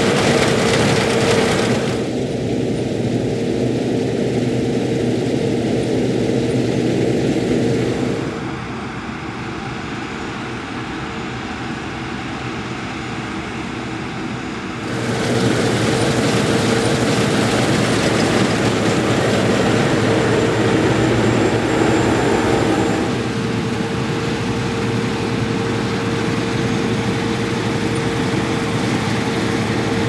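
Claas Lexion 560 Terra-Trac combine harvester running while cutting barley with its V660 header: a steady machine drone with a held tone. It drops in level for several seconds partway through, then comes back up.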